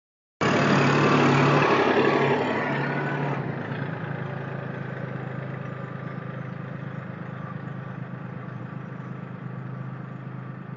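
Kubota L2501 tractor's three-cylinder diesel engine running. It starts abruptly at full level, louder for the first three seconds or so, then settles to a lower, steady hum.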